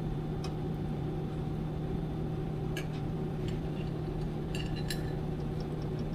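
A few light clinks and taps of a spoon and fingers on a plate while filling is spooned onto a masa tortilla and the tortilla is folded by hand, the clearest pair of ringing clinks about four and a half seconds in. Under them a steady low machine hum.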